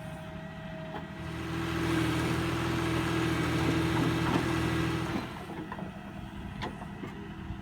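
Backhoe loader's diesel engine idling, then revving up from about a second in and holding high for about four seconds before dropping back to idle.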